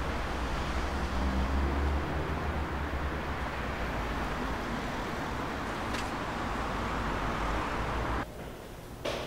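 Steady street traffic noise, a low rumble of passing cars, with one sharp click about six seconds in. The noise cuts off suddenly near the end.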